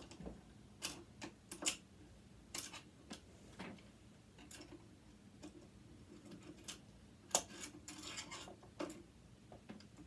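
Faint, irregular small clicks and taps of a screwdriver and loose metal parts being handled while a device is taken apart, with a short scraping about eight seconds in.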